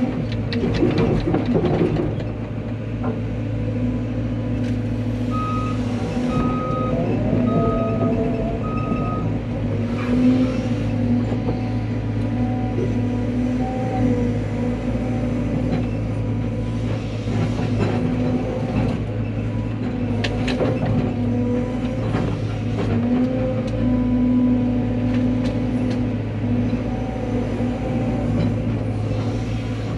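CAT 320 excavator's diesel engine running steadily under work, with scattered knocks and scrapes. Four short beeps sound evenly spaced about five to nine seconds in.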